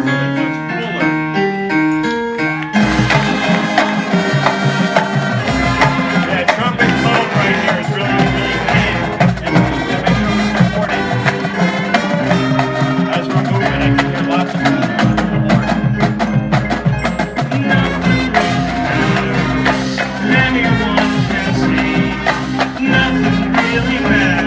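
Marching band playing: a couple of seconds of lighter, separate notes, then the full band of brass and drums comes in loudly almost three seconds in and keeps playing.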